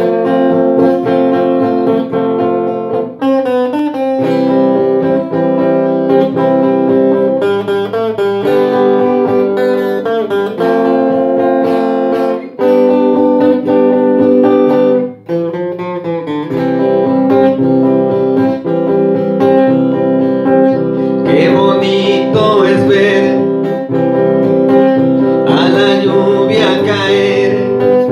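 Instrumental opening of a ballad: electric guitar playing a melody over sustained backing chords, with a higher lead line wavering with vibrato in the second half.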